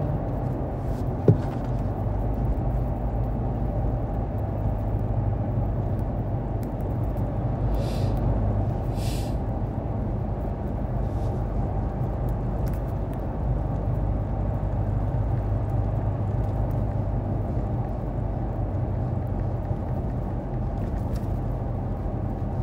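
Steady low rumble of a car heard from inside the cabin, with one sharp click about a second in.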